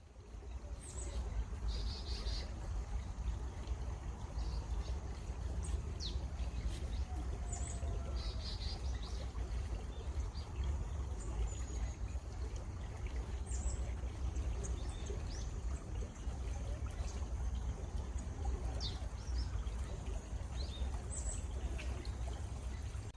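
Running water with a steady low rumble, and small birds chirping at intervals over it, with a couple of short rapid trills.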